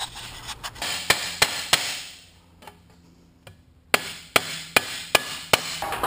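A 20-gauge aluminized sheet-metal patch panel being handled and worked: a rubbing scrape with three sharp metallic taps about a second in, then after a short pause five quick clicks and knocks near the end.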